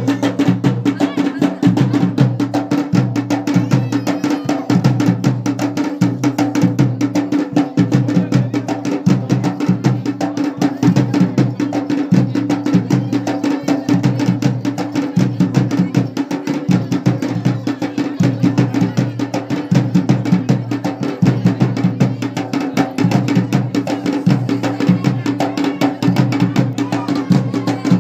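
Garhwali dhol and damau drums playing a fast, steady dance rhythm of dense drum strokes.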